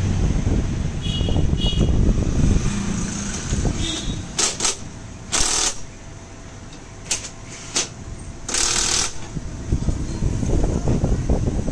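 Cordless impact driver run in five or six short bursts, rattling as it drives bolts home at a scooter's front brake caliper and fork, over a low background rumble.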